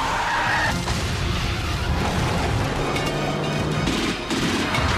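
Action film score playing loudly, with low booms from the chase's fire and crash effects mixed under it.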